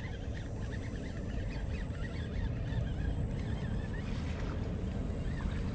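Birds calling in a quick run of short, wavering calls, over a steady low rumble.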